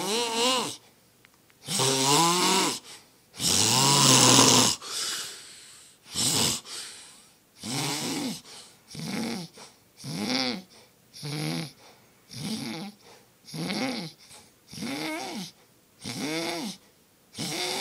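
A man snoring in his sleep, one snore per breath. Each snore has a clear pitch that rises and then falls, almost like a hum or moan. Two longer, louder snores come near the start, then shorter ones repeat steadily about once a second.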